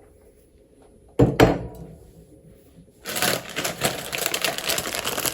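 Two quick knocks, then from about three seconds in a continuous crinkling rustle, typical of a plastic shopping bag being handled as groceries are unpacked.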